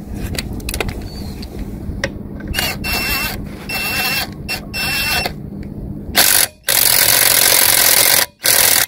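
Avid Power 20V cordless half-inch impact wrench hammering on a car's lug nut: a few short trigger bursts, then one long loud run of hammering from about six seconds in, broken twice briefly, that cuts off suddenly at the end.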